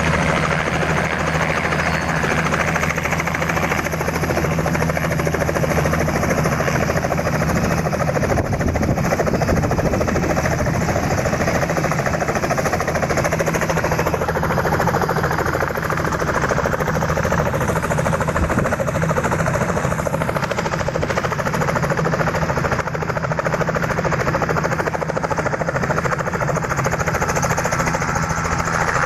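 Robinson R66 helicopter's main rotor beating steadily, with its Rolls-Royce RR300 turbine running, as it hovers low and settles onto its skids. The rotor keeps turning at speed at the end.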